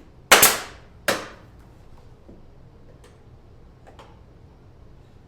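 Brad nailer firing twice in quick succession, each shot a sharp crack that rings off briefly, driving brads into scrap plywood; a couple of faint clicks follow a few seconds later.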